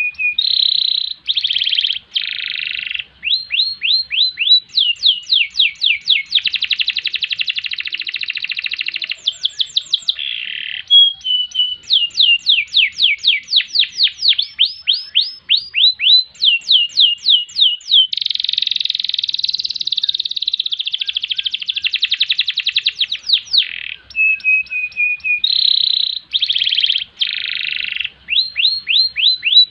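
Domestic canary singing a long, unbroken song: runs of rapid downward-sweeping notes, long fast rolls, and short steady whistled notes. The same sequence of phrases comes round again near the end.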